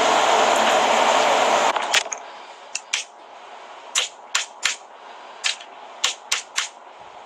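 A loud steady rushing hiss cuts off suddenly about two seconds in. It is followed by about ten sharp taps of fingers on a phone's touchscreen, some coming in quick pairs and threes.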